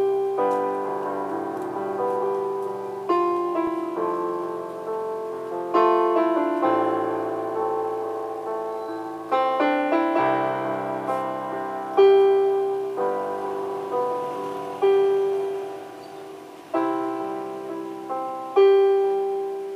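Electronic keyboard played with a piano voice: a slow tune of struck chords under a melody, each chord fading away before the next is played.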